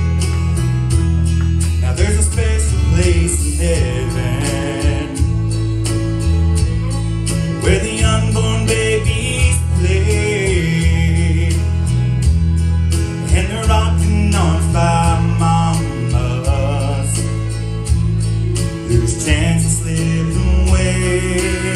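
Country gospel song played live by a church praise band: guitar and bass keep a steady beat under a wavering lead melody.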